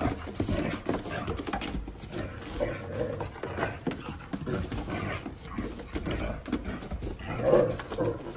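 A dog vocalizing among many short clicks and knocks, with a louder pitched sound near the end.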